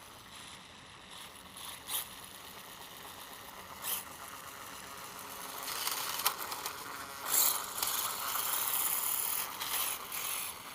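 Brushless electric motor and geared drivetrain of a ZD Racing Phantom 400 RC dirt bike whirring as it drives, faint at first with a couple of small clicks, then louder from about halfway through.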